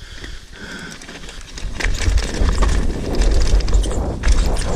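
Mountain bike riding down a rough dirt trail: from about two seconds in, wind buffets the microphone with a low rumble as the bike picks up speed, over the clatter of tyres and frame on the bumpy ground.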